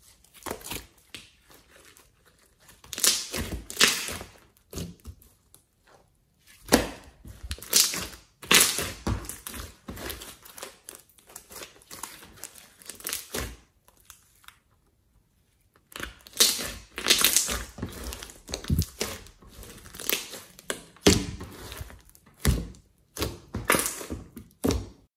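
Hands stretching, squeezing and poking a large glossy slime, making sticky squishing noises in irregular bursts with a few short pauses.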